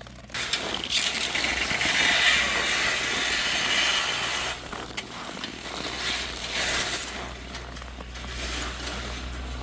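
Snowblower running and throwing snow, a loud rattling mechanical noise that sets in about a third of a second in and wavers in strength, over a steady low engine hum.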